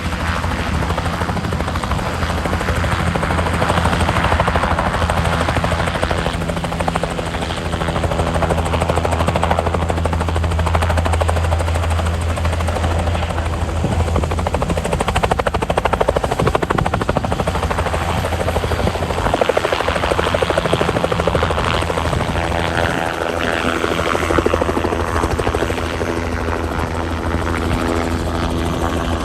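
Medevac helicopter taking off, its engine and rotor running loud and steady with a rapid rotor beat.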